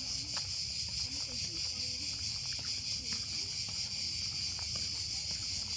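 Steady high-pitched buzzing chorus of insects.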